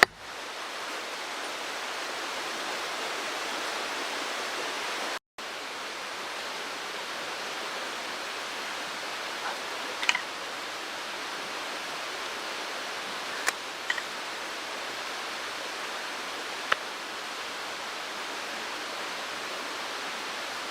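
Mountain stream rushing steadily, with a few sharp clicks in the second half. The sound cuts out briefly about five seconds in.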